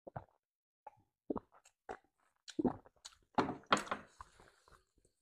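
Close-range eating sounds: scattered wet mouth smacks and clicks of chewing rice and beef curry, coming thicker and louder about halfway through.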